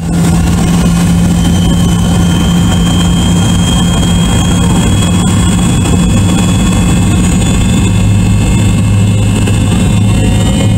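A McDonnell Douglas MD-82's rear-mounted JT8D turbofan engines running steadily, heard from inside the cabin on the runway before takeoff. Two low hums sit under a thin high whine and a hiss.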